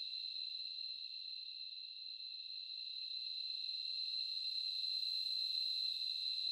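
Steady high-pitched trilling of crickets, with nothing lower underneath, growing slightly louder about halfway through.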